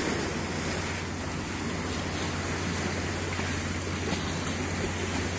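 Steady rush of wind and lake water with a low, even engine drone from a boat under way on the lake.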